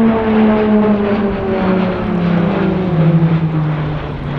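Pilatus PC-21 turboprop trainer making a fast low pass, its propeller drone dropping steadily in pitch as it goes by.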